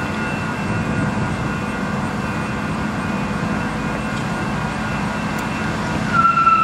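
Low, steady diesel rumble of a freight train approaching slowly, led by a CSX ES44AC-H locomotive. Near the end a loud, steady horn tone starts.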